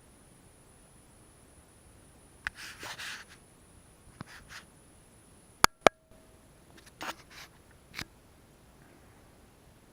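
A few short scrapes and light clicks, with two loud, sharp clicks a quarter second apart about halfway through.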